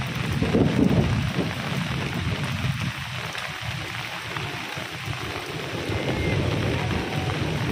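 Heavy rain falling steadily, with a low rumble of thunder that swells about a second in and then eases.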